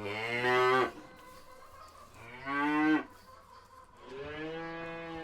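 Cows mooing: three moos, the first two short and loud, the third longer and softer starting about four seconds in.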